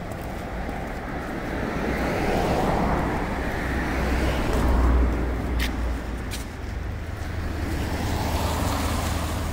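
Street traffic with cars passing: the road noise swells to a peak about halfway, fades, and builds again near the end. Two sharp clicks come just after the middle.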